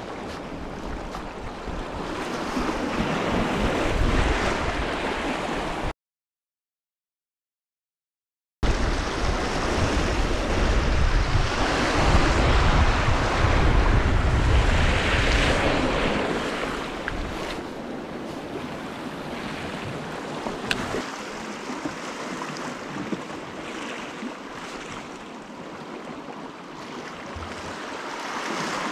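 Sea surf washing against a rocky shore, with wind buffeting the microphone, heaviest in the first two-thirds and easing off later. The sound drops out completely for a couple of seconds about six seconds in.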